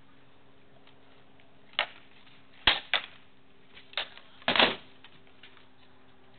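Swords striking armour and a shield in armoured sparring: a handful of sharp, separate blows, ending in a quick flurry of hits about two-thirds of the way through.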